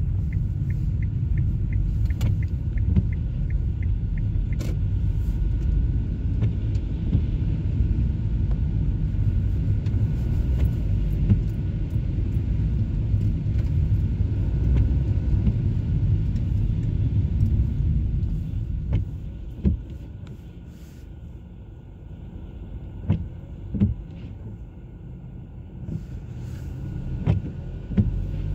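Car cabin rumble and tyre noise on a wet road, with a quick, light ticking in the first few seconds. About twenty seconds in the rumble drops off for several seconds, with a few sharp knocks, then picks up again near the end.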